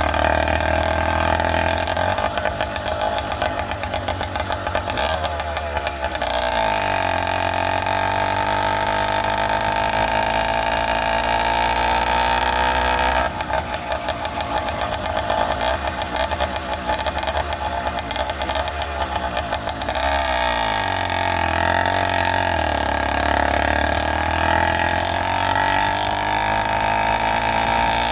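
Small engine of a motorized bike running under way. It eases off twice, about a quarter of the way in and again about three quarters in, dropping in pitch, then picks back up.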